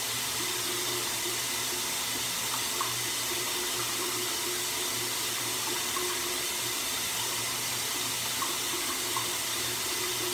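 Water running steadily, an even hiss with a faint low hum beneath it and a few small ticks.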